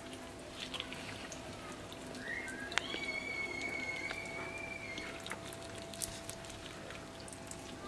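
Soft scattered clicks and wet handling sounds of gloved hands peeling the skin off a boiled beef tongue, over a steady faint hum. About three seconds in, a sharp click is followed by a thin, high whistle-like tone lasting about two seconds.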